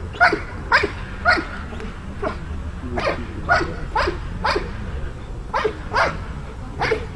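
Belgian Malinois barking repeatedly at the decoy while guarding an object (a basket): about eleven sharp barks, roughly two a second, with a short gap near the middle.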